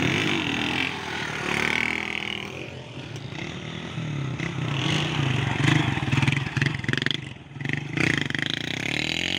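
Small street motorcycle engines revving up and easing off as bikes pass one after another, one rider revving to lift the front wheel in a wheelie.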